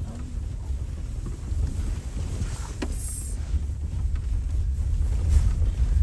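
Wind buffeting the microphone as a steady low rumble, with a brief click about three seconds in.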